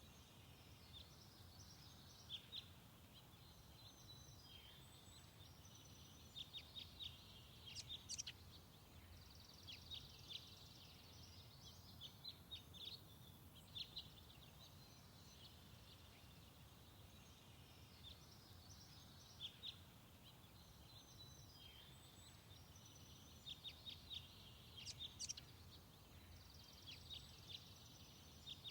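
Small birds chirping faintly in short scattered clusters of quick, high notes every few seconds, over a faint steady low background rumble.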